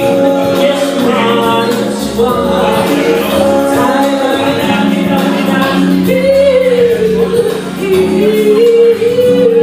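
A woman singing a soulful ballad, sustained wordless notes and runs over a band accompaniment, in a large room.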